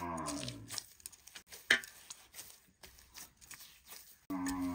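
A cow mooing: the end of one long moo at the start, and another long moo beginning near the end. In between, faint soft pats and clicks from hands kneading finger-millet dough.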